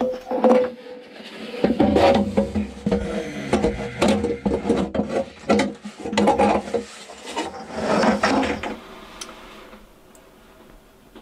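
Corrugated stainless steel exhaust hose of a diesel air heater being pushed through a hole and fitted under the heater: irregular scraping, rattling and knocks of the metal hose against wooden framing, dying down about nine seconds in.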